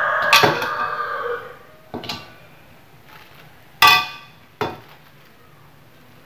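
Metal wok knocked and clinked as filling is scooped out of it: a ringing clank in the first second, a few lighter knocks, and a sharper ringing clank about four seconds in, the loudest of them.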